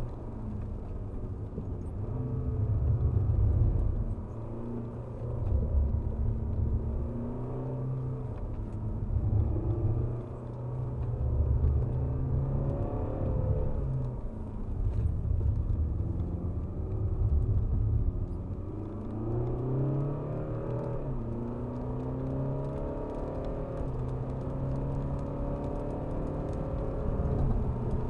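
Alfa Romeo Giulia Veloce Q4's 2.2 four-cylinder turbodiesel heard from inside the cabin under hard driving. The engine note rises in pitch several times and drops back over a steady low rumble.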